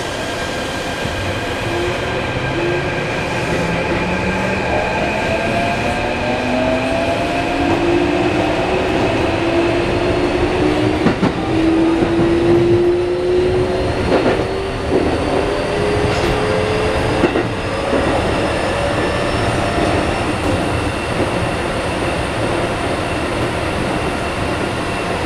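Keikyu 1500 series train's Mitsubishi IGBT-VVVF inverter and traction motors whining as the train accelerates, heard inside the car, with several tones climbing steadily in pitch. The wheels click a few times over rail joints partway through.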